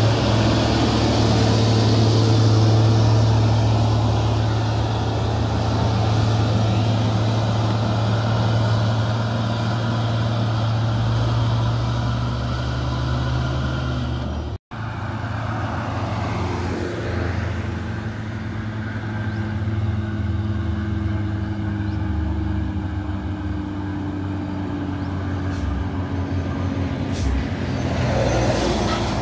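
Heavy diesel truck engines running on the road: a strong steady engine drone, then a momentary cut about halfway after which another truck engine is heard with a slowly sliding whine.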